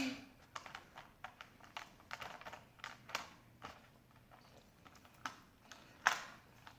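Plastic Rubik's Cube being twisted with the feet: irregular clicking and clacking of its layers turning, with one louder knock about six seconds in.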